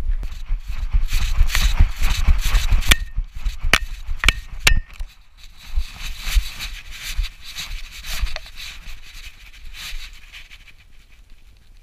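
A dog running with an action camera strapped to its harness: thudding strides and rustle carry through the harness. Four sharp metal clinks from the harness buckles and tag come a few seconds in. The movement noise grows quieter near the end as the dog slows in the grass.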